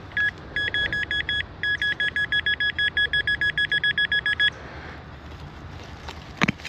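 Rapid electronic two-tone beeping from metal-detecting gear signalling a buried metal target, about five beeps a second with a short break early on. It stops after about four and a half seconds. A single sharp knock comes near the end.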